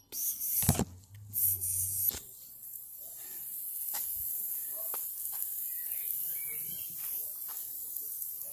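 Garden hose spray nozzle spraying water onto paving: a few loud bursts in the first two seconds, then a steady hiss.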